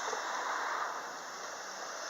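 Steady rushing noise of a passing vehicle, easing a little about a second in.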